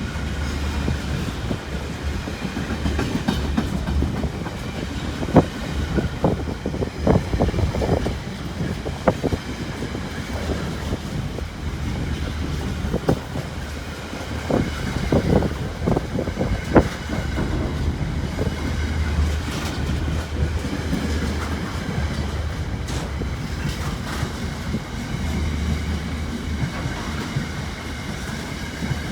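Intermodal container freight train's wagons rolling past, the wheels clicking and knocking irregularly over rail joints over a steady low rumble.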